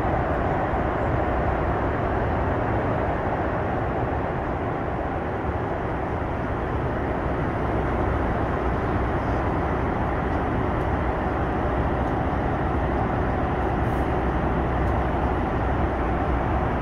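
Steady cabin noise of a Boeing 737 MAX 9 airliner in flight: an even rush of airflow and engine noise that does not change.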